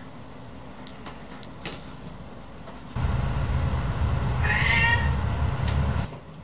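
A domestic cat meowing once, a single drawn-out call about two thirds of the way in, demanding that its owner wake up for breakfast. It sits over a low rumble that starts and stops abruptly.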